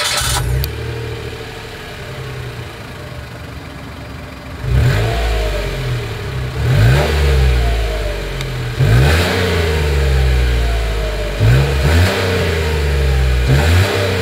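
2022 Mitsubishi Mirage G4's 1.2-litre three-cylinder engine heard at the exhaust: it starts up and settles into an idle, then from about a third of the way in is blipped in short revs about every two seconds, each rising and falling back to idle.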